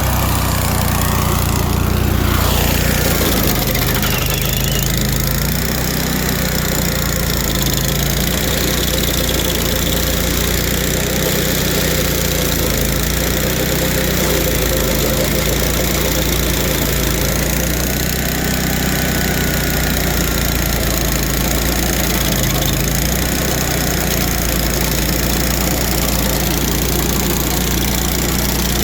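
2002 Vermeer SC252 stump grinder's engine running steadily, with a single short knock about two seconds in.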